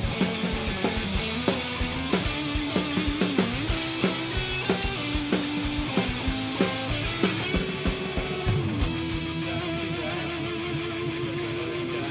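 Band playing an instrumental break of a pop-rock song: a guitar lead melody over a steady drum beat, settling on a long held note near the end.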